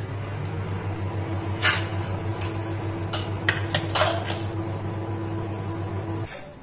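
A few sharp clicks and light clatters of raw chicken pieces being set down and handled on a metal baking tray, the loudest about a second and a half in and around four seconds. Under them runs a steady low hum that cuts off shortly before the end.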